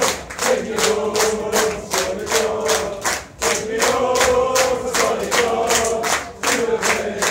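A crowd of football supporters singing a chant together, with steady rhythmic hand-clapping about three to four claps a second.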